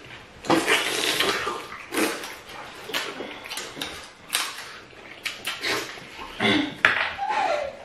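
Close mouth sounds of two people eating fufu and okra pepper soup with their fingers: wet smacking, sucking meat off a bone and licking fingers, in irregular clicks and slurps. There is a short falling hum about seven seconds in.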